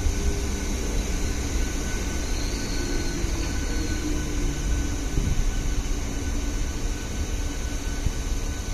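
Inside an MMTS electric suburban train (EMU) in motion: a steady low rumble of wheels and running gear, with a faint steady high tone over it.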